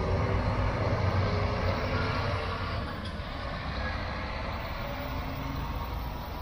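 Double-decker intercity coach's diesel engine running as it pulls away, a heavy low rumble that fades after about two and a half seconds as the coach moves off.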